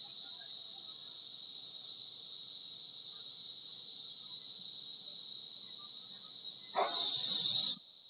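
Cicadas droning steadily and high-pitched. Near the end a dog barks over them for about a second.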